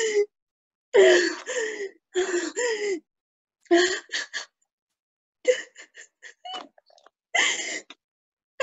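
A person sobbing: a run of short crying bursts whose pitch falls, broken by gasps and sniffles, with brief silences between them.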